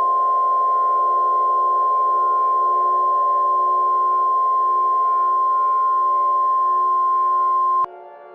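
A NOAA Weather Radio 1050 Hz warning alarm tone: one loud, steady, pure tone that cuts off suddenly near the end, marking the start of an emergency warning broadcast. A steady synthesizer drone of several held notes sounds underneath.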